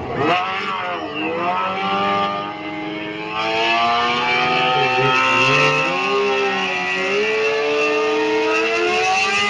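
Sport motorcycle engines revving hard during a burnout, held high with the pitch swinging up and down, louder from about three and a half seconds in.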